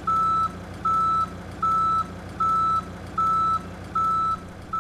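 A vehicle reversing alarm on a telehandler beeps steadily, one single-pitched beep about every 0.8 s, with the engine running underneath.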